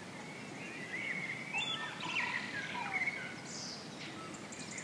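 Several birds chirping and singing in short whistled phrases over a steady outdoor background hiss.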